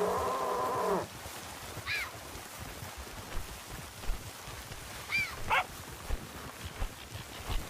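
Animal calls: a loud drawn-out pitched call that ends about a second in, then a few short high calls scattered through the rest.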